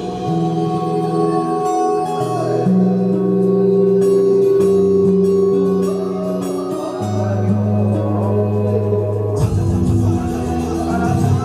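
Music with long held chords over a low bass that moves to a new note every two seconds or so; a busier rhythmic accompaniment comes back about nine seconds in.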